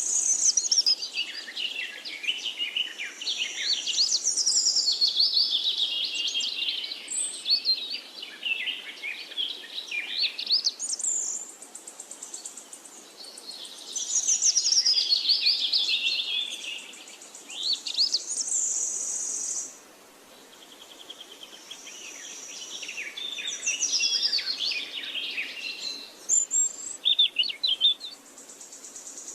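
Songbirds singing: long phrases of rapid, varied twittering that sweep down from high notes, broken by short pauses. A high, steady buzz comes and goes between the phrases.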